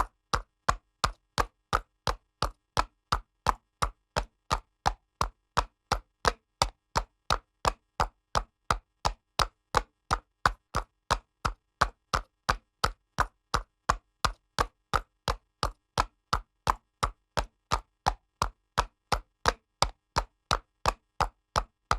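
Horse's hooves trotting on pavement: sharp, evenly spaced clip-clop strikes, about two and a half a second, keeping a steady pace.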